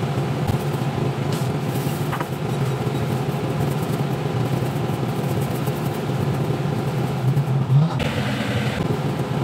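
A steady low mechanical hum, with a few faint clicks of a spoon against a frying pan in the first couple of seconds.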